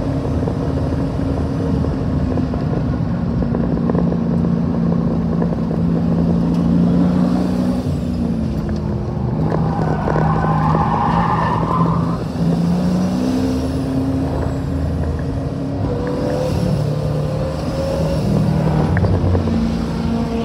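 Twin-turbo LSX V8 of a Chevelle running on track at moderate revs, its pitch dropping and climbing again with gear changes and throttle, with a brief tire squeal about ten seconds in.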